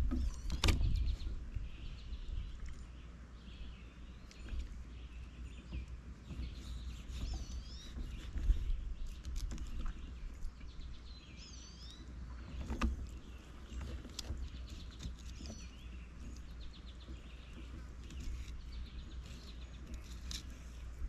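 Quiet outdoor ambience with a steady low rumble and a few sharp knocks from a fillet knife and a catfish being handled on a wooden board. Birds chirp twice, about 7 and 11 seconds in.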